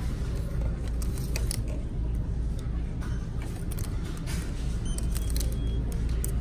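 Clothes hangers clicking and sliding along a store clothing rack as hanging pants are pushed aside by hand, with scattered short clicks over a steady low rumble.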